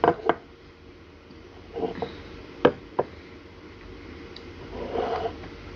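Mug set down on a wooden table with a knock, followed by a few more scattered taps and knocks on the table, two of them sharp about a third of a second apart near the middle.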